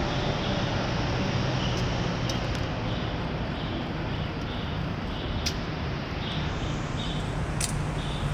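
Steady city traffic noise, a low rumble and hiss, with a run of faint short high-pitched notes and a few light clicks.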